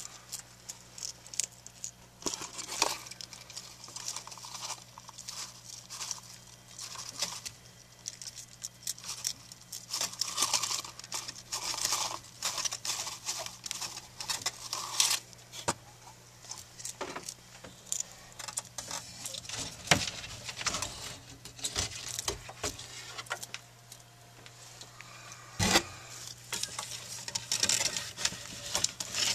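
Irregular rustling, scratching and clicking as Chinese water dragons scramble over loose substrate and a plastic dish while hunting dubia roaches, with busier stretches about a third of the way in and near the end. A steady low electrical hum underneath.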